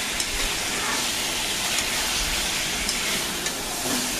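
Cubes of boiled taro sizzling steadily in spiced oil in a metal karahi while being sautéed, with a metal spatula stirring through them and a few light clicks against the pan.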